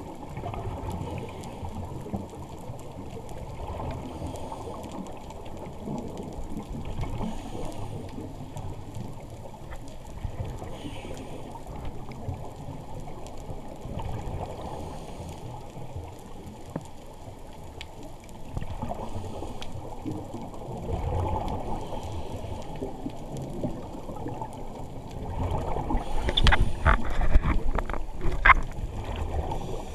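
Muffled underwater noise of a scuba diver breathing through a regulator, with a louder gurgling rush of exhaled bubbles near the end.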